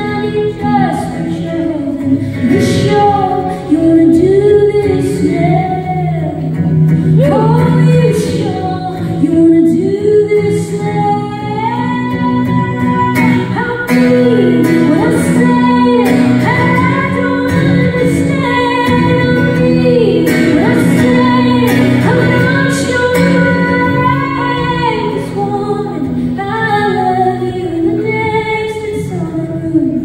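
A woman singing a slow song live, accompanying herself on an acoustic guitar.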